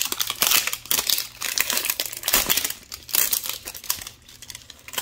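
The crinkly outer wrapping of an LOL Surprise doll ball being peeled and pulled off by hand, rustling and crinkling in quick irregular bursts that grow quieter near the end.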